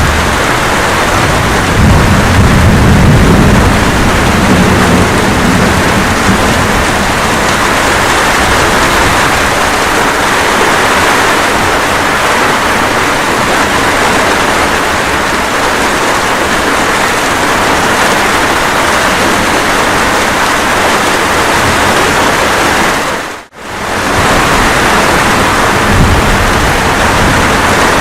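Steady rain falling, with a low rumble of thunder in the first few seconds. About two-thirds of the way through, the sound fades out for a split second and comes straight back.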